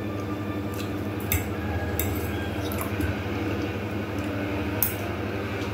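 Eating sounds: wet chewing with a few sharp clicks of a metal fork against a plate, over a steady low hum.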